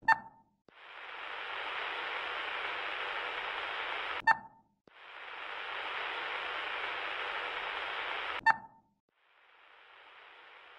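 Three short electronic beeps, about four seconds apart, each followed by a few seconds of steady static hiss with a muffled, radio-like band; the last stretch of static is quieter.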